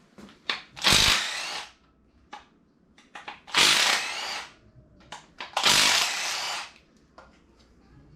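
Power impact wrench run in three short bursts, backing out bolts during an engine teardown, with small tool clicks in between.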